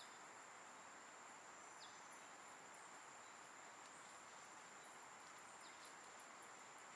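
Faint insect chorus: a steady high-pitched trill, with a few short chirps over a soft, even hiss.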